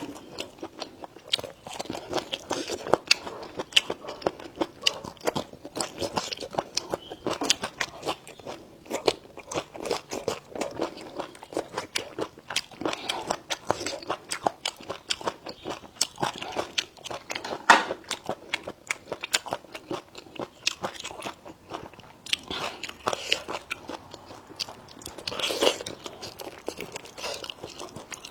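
A person chewing and biting into food, with many small crunches and clicks packed close together and irregular, and a louder crunch a little past the middle and another near the end.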